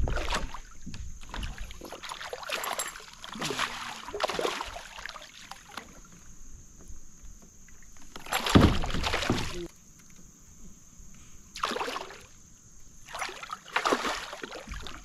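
Kayak handling noise: irregular splashes, knocks and rustles on the boat, with a sharp bump at the start and the loudest burst about eight and a half seconds in.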